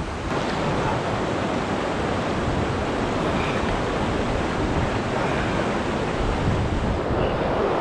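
River water rushing in a steady, even stream.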